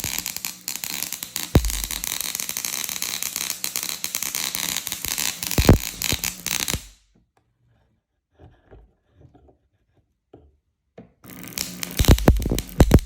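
Marconi wireless telegraph spark coil firing, a rapid crackle of spark discharges over a steady buzz. It stops about seven seconds in, leaving a few faint clicks, and starts up again near the end.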